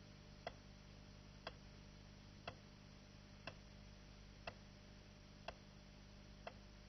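A timer ticking once a second, counting off the seconds of a timed run, over a faint steady low hum.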